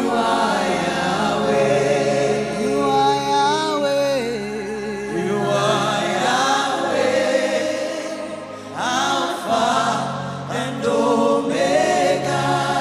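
Gospel worship music: several voices singing long, sliding, vibrato-laden lines over sustained low accompaniment notes.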